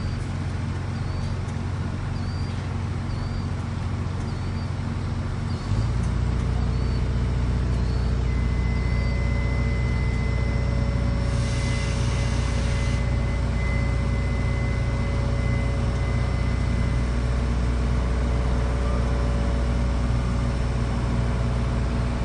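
Norfolk & Western Class J 611 steam locomotive standing in steam: a steady low rumble that grows louder about six seconds in, with a short hiss a little past the middle.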